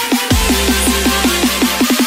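Electronic dance music with a deep sustained bass under a fast run of short notes that dip slightly in pitch.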